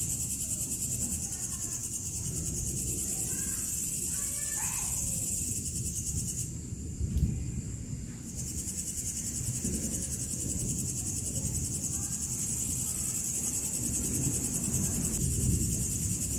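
Night chorus of crickets giving a steady high-pitched trill, which cuts out for about two seconds near the middle and then resumes. A low rumbling noise runs beneath it.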